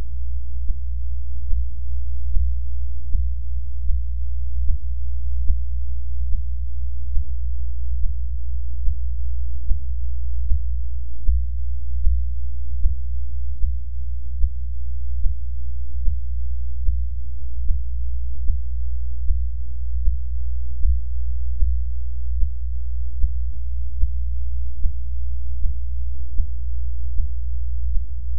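Recorded human heartbeat from a heart with arrhythmia, played back as deep low pulses about once a second over a steady low drone and a faint hum.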